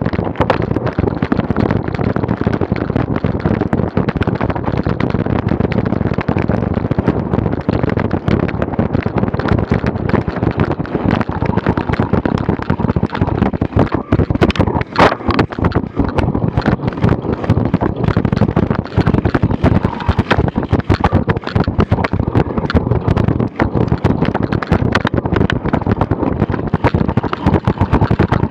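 Wind buffeting a bike-mounted action camera's microphone over the constant rattle and knocks of a bicycle being ridden fast across bumpy grass, with one sharp bang about halfway through.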